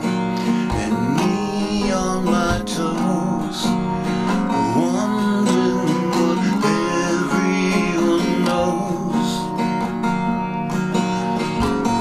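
Acoustic guitar playing a continuous instrumental passage, strummed and picked notes ringing steadily.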